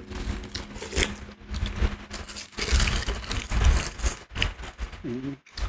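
Metal spoons scraping and clicking against bowls of boiled nurungji, with soft eating and handling noises. A short voiced murmur comes near the end.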